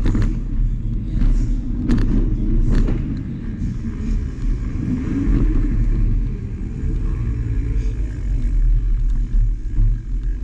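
Bicycle tyres rolling over wooden ramps and then concrete floor, heard as a steady low rumble through a handlebar-mounted camera, with a few sharp knocks in the first three seconds.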